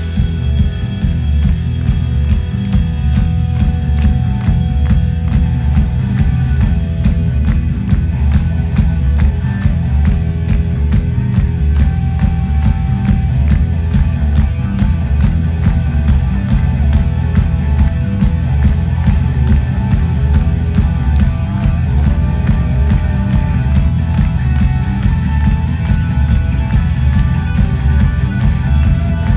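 Live rock band playing, amplified: electric guitars over bass and drums keeping a steady beat.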